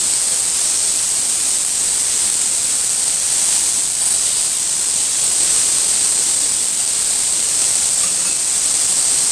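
Chicken skewers sizzling in a little oil on a hot tava, a steady high hiss.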